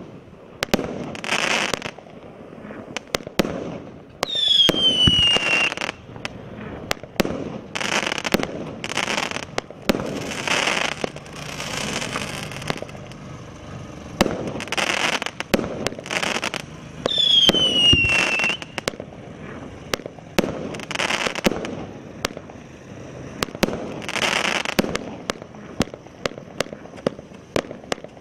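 Aerial fireworks going off shot after shot: sharp launch pops and bursts, with hissing, crackling sprays. Twice a whistling tone slides downward.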